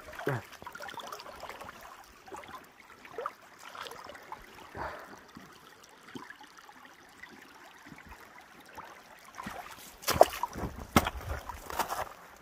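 Faint trickling water with light rustling. About ten seconds in come several sharp cracks and rustles, like twigs snapping underfoot.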